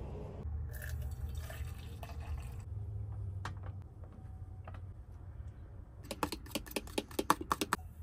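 Kitchen sounds of breakfast being made over a low steady hum: a stovetop moka pot gurgling and dripping early on, a few light clicks, then a quick run of about ten sharp taps near the end.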